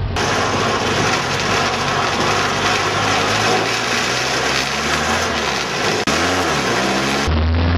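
Race car engines running at speed on the track, loud and steady, with one engine's pitch dropping and climbing again about six seconds in. Music cuts in just before the end.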